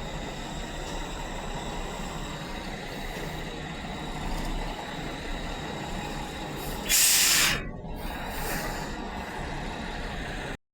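A semi truck's air brakes release with one short, loud hiss about seven seconds in, over steady vehicle noise. The recording cuts off near the end.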